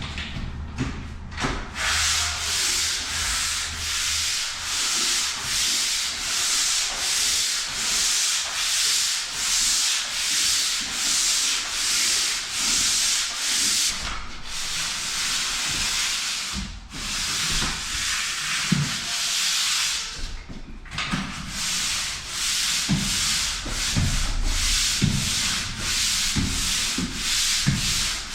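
Pole sander scraping back and forth over a mist-coated plaster wall in even strokes, about one a second, pausing briefly three times. The mist coat is being sanded down to knock off the nibs and flatten the wall before filling.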